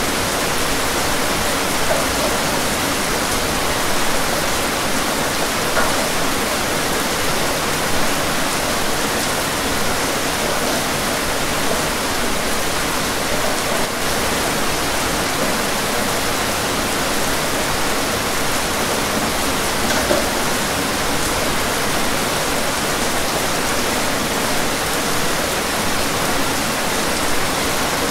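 Rain falling steadily: a dense, even hiss with an occasional louder drop.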